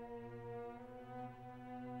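Orchestral background music with long held notes.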